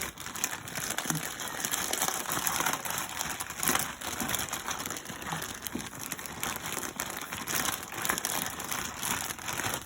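Plastic bags of raw chicken wings in a liquid marinade being shaken: continuous crinkling and rustling of the plastic, full of small crackles.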